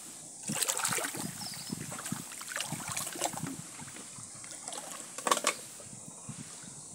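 River water sloshing and trickling around a man wading waist-deep as he lowers a plastic-bottle shrimp trap into it, with a sharper splash about five seconds in.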